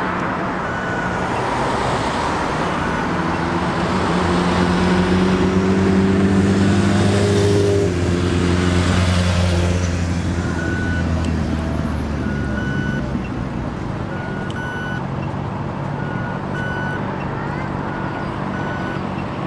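City street traffic: a large vehicle's engine passes close by through the middle, its note rising and then fading, over a steady traffic noise. From about halfway on come repeated short high beeps, often in pairs.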